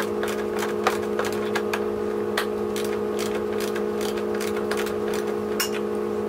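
Socket ratchet clicking as it turns a fastener: a run of quick ticks, about three a second, for the first couple of seconds, then a few single clicks, over a steady low hum.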